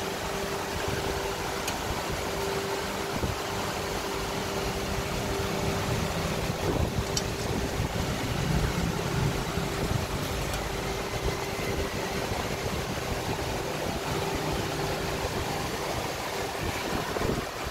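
Steady workshop background noise: a constant hum over a hiss, with a faint click about seven seconds in. The hum fades out near the end.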